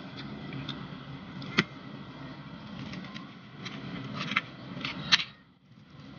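Metal spoon and fork clinking and scraping on a ceramic plate of rice: one sharp clink about one and a half seconds in, then a cluster of clicks from about four seconds ending in the loudest clink just past five seconds, over a steady low background hum.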